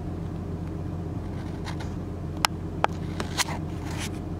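Steady low drone of a vessel's engine, with a few short sharp clicks about halfway through.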